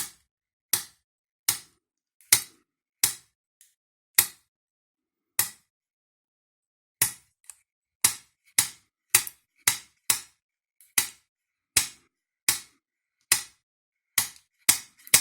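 A homemade snap gun being fired into a Brinks 40 mm padlock, about twenty sharp metallic snaps as its needle flicks the pin stacks. They come about a second apart at first, stop for over a second midway, then come faster, nearly two a second near the end.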